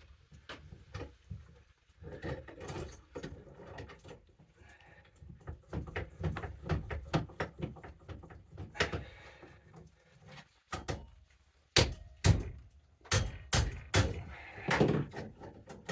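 Irregular clunks and scrapes of metal parts being worked as a stuck piece on an ice auger's drill bit is forced loose, with several loud sharp knocks near the end.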